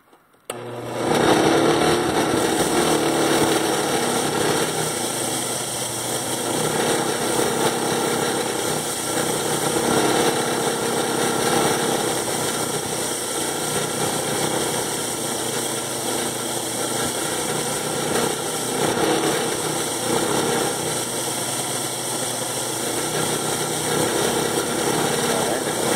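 Bench grinder's wire wheel switched on about half a second in and running steadily, loud, as a spray-gun needle crusted with dried paint and rust is scrubbed against the spinning wire brush.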